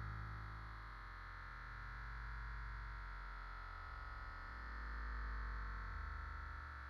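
Soft synthesizer background music: sustained pad chords over low bass notes that shift every few seconds.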